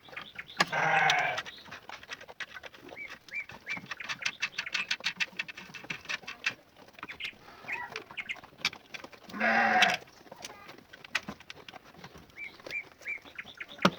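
Two long bleats from a farm animal, one just after the start and one about nine and a half seconds in, with small birds chirping repeatedly and scattered light clicks.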